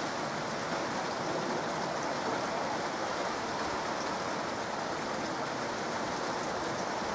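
Heavy rain pouring down steadily, an even hiss with no let-up.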